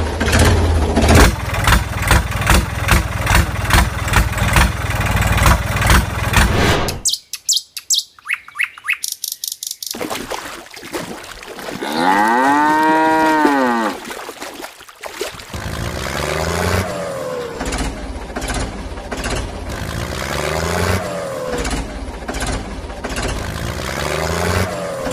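Tractor engine running with a regular beat, then a cow mooing once loudly, about halfway through. After the moo the engine runs again, revving up in repeated short rises.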